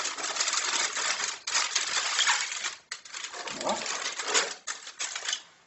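Aluminium foil crinkling as it is folded over and crimped shut into a cooking parcel, in irregular bursts with a brief pause about three seconds in.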